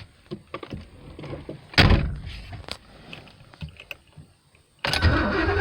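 A car door shuts with a single thunk about two seconds in. Near the end the Porsche 928's V8 starts cranking on the starter and keeps turning over without catching, a no-start that the owner suspects comes from the fuel pump.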